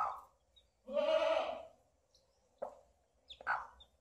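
Calls from a larger farm animal: a quieter call at the start, one long call about a second in and shorter calls near the end, with faint high peeps from newly hatched chicks.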